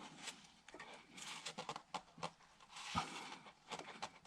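Faint scattered clicks, taps and rubbing of oil filter parts being handled and pressed together, with one slightly louder knock about three seconds in.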